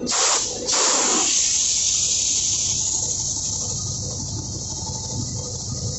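Compressed air hissing out of a marine main engine exhaust valve's air chamber as the air connection is released, letting the valve spindle drop. The hiss starts abruptly, breaks for a moment, then runs on loud and steady.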